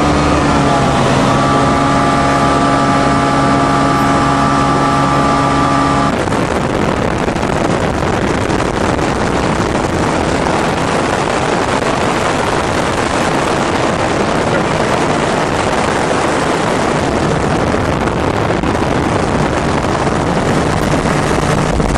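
A small airplane's engine and propeller drone, heard from inside the cabin during a landing approach over snow. The steady engine note stops abruptly about six seconds in, leaving a loud, even rush of wind and engine noise.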